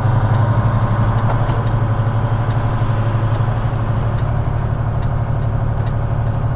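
Semi truck's diesel engine running while under way, heard from inside the cab as a steady low drone.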